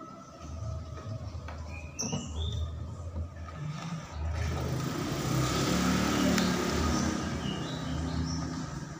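Vehicle noise that swells to a peak around the middle and then fades, over gusty low rumble, with a few short high chirps.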